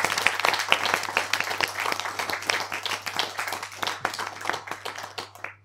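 Sound effect for an animated channel logo: a dense, irregular crackle of sharp clicks over a low steady hum, thinning and fading out near the end.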